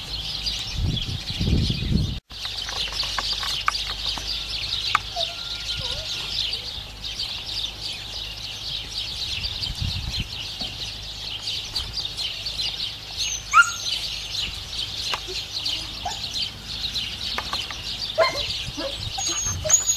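Many birds chirping at once in a dense, continuous chorus of rapid high chirps, with a few louder single calls now and then. The sound cuts out for a moment about two seconds in.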